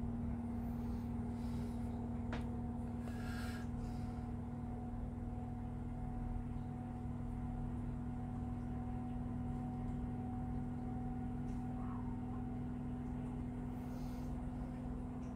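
Steady low hum, even and unchanging, like a motor or fan running in a small room. A few faint brief clicks and rustles come from hands handling a small plastic part.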